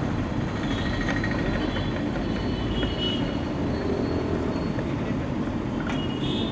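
Steady low rumbling background noise, with a couple of faint light clicks over it.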